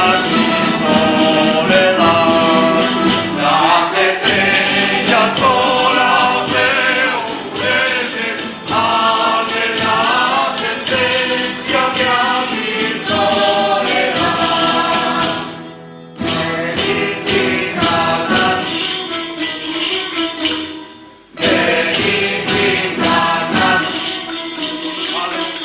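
A group of despertadores singing a traditional devotional dawn song together, with jingling percussion accompaniment. The singing and playing drop out briefly twice in the second half, between verses.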